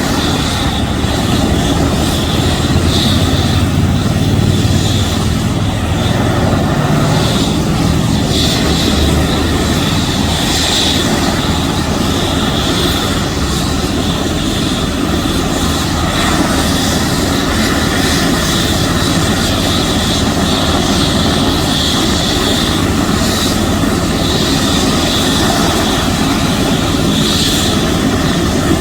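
Medical helicopter's turbine engine and rotor running loud and steady close by, with a fast beating rotor chop and a high turbine whine.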